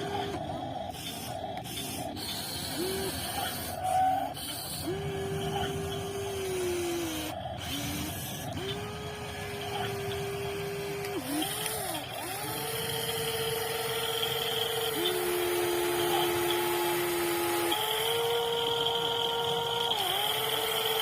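Electric motors of a WLtoys 16800 RC metal excavator whining in a string of steady tones, each lasting a second to a few seconds, stopping and starting again at slightly different pitches as the machine is worked.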